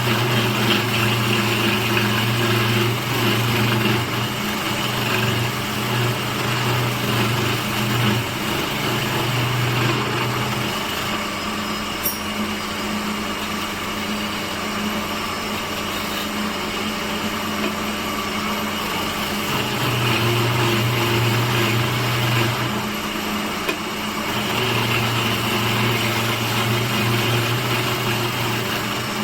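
Electric woodworking machine running steadily with a mechanical hum, its low hum fading for several seconds twice and coming back, as the load on it changes.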